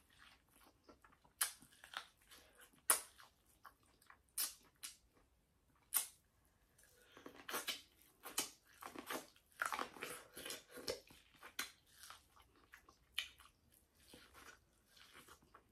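Close-miked mouth sounds of eating: sharp wet smacks about every second and a half at first, then a denser run of chewing and smacking through the second half.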